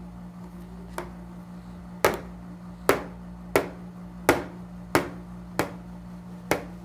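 A baby smacking the plastic tray of a high chair: a faint knock about a second in, then seven sharp slaps, about one every two-thirds of a second.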